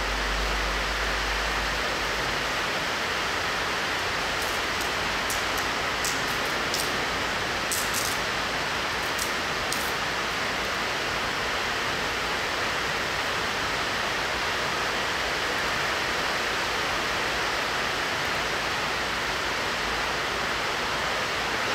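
Steady hissing background noise, even in level throughout, with a few faint clicks between about four and ten seconds in.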